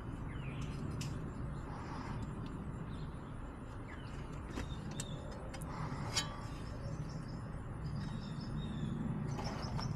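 Scattered light clicks and knocks of aftermarket intake pipes and fittings being handled and fitted in a car's engine bay, over a steady low hum.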